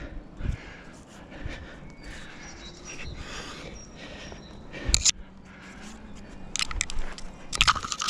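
Tree climber's hands, shoes and clothing scraping and knocking against bark and branches while he breathes hard with the effort. A sharp scrape about five seconds in, and a quick cluster of scrapes and knocks near the end, are the loudest sounds.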